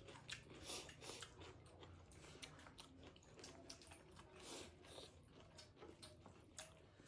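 Faint chewing and eating sounds, with many soft, irregular clicks as rice is mixed and picked up by hand.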